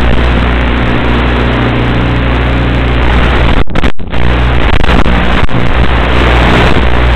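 Loud hiss and buzz from an analog FPV video link's audio, with a steady low electrical hum underneath. It cuts out twice in quick succession a little past halfway.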